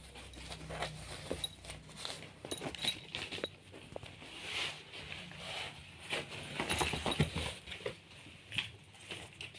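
A pet otter moving about on bedding: irregular scuffling, rustling and light pattering on the blankets.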